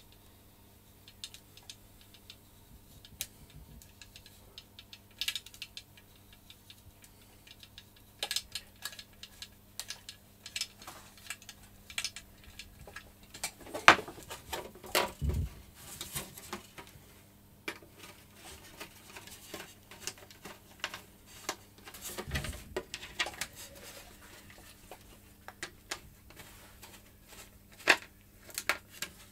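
Scattered light clicks and taps of hand work with small tools: a thread tap, a small screwdriver and the carbon-fibre wing and fuselage of a hand-launch glider being fitted and screwed together. There are a few louder knocks and two dull thuds around the middle, over a faint steady hum.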